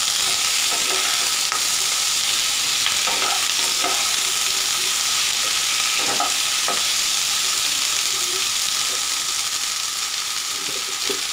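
Cubed potatoes, brinjal and tomato sizzling in hot oil in a non-stick kadai while being stirred with a wooden spatula, with a few scrapes and knocks of the spatula against the pan.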